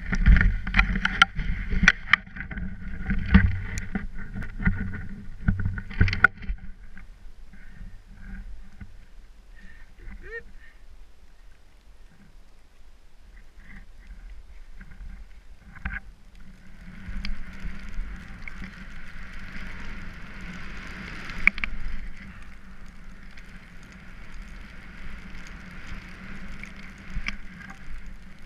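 Rushing of snow and wind as a rider glides through deep powder snow, with a run of knocks and thumps over the first six seconds. A quieter stretch follows, then a steady hiss of snow spray from about seventeen seconds in.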